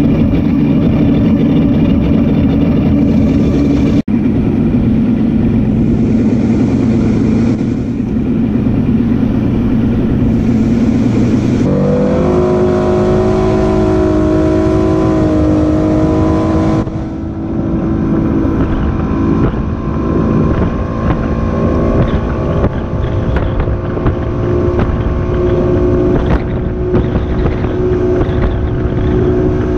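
Mercury 150 XR2 two-stroke V6 outboard motor running a bass boat under way, with water rushing past the hull. The engine runs loud and continuous, its note shifting to a steadier, higher hum about twelve seconds in.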